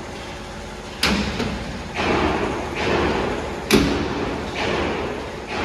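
Rhythmic scraping strokes, each swelling and fading, roughly once a second, broken by two sharp knocks: one about a second in and a louder one near four seconds.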